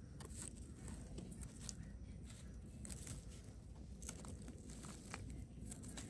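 Faint scraping and rustling of a small knife digging small mushrooms out of loose soil and dry leaf litter, in scattered short ticks.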